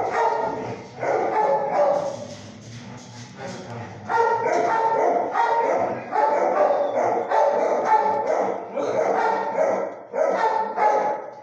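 Dogs barking in an animal shelter's kennels, a dense run of overlapping barks that drops back for a couple of seconds about two seconds in, then picks up again.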